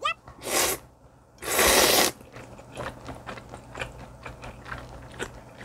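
Slurping up spicy chewy noodles: a short slurp, then a longer, louder one about a second and a half in, followed by close-miked chewing full of small wet clicks.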